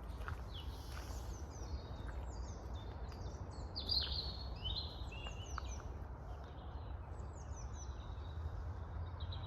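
Several small birds chirping and trilling in quick, overlapping phrases, loudest about four seconds in, over a steady low rumble.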